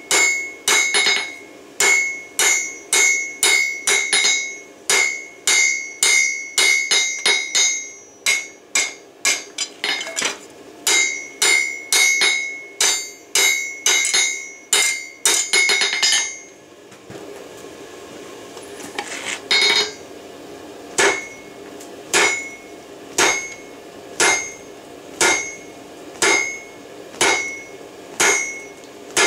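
Hand hammer striking a glowing bar of forge-welded railroad spikes on a Peddinghaus anvil, each blow ringing. Quick blows, about two to three a second, stop about halfway through; after a pause of a few seconds with a steady hiss, the blows resume more slowly, about one a second.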